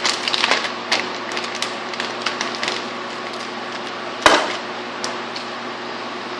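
Scattered light clicks and rustles of food handling at a cutting board, with one sharp knock about four seconds in, over a steady background hum.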